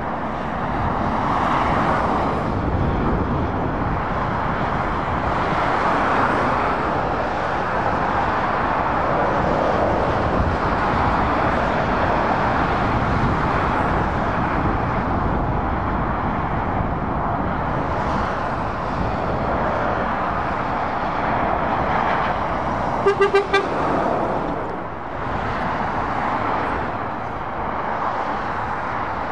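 Steady road traffic on a dual carriageway: a Volvo FH lorry and cars passing with a continuous rumble of tyres and engines. About three quarters of the way through, a vehicle horn gives three quick short toots.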